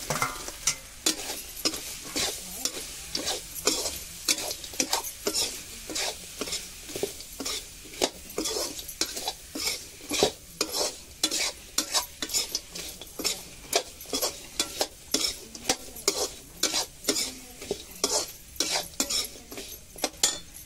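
Crab pieces frying in masala and oil in an iron kadhai, sizzling, while a steel slotted spatula stirs and scrapes them, knocking against the pan two or three times a second.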